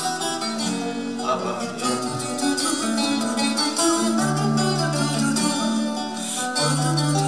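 Two acoustic guitars, a nylon-string classical and a steel-string, strummed and picked together in a live bard-song performance, with long held sung notes over them.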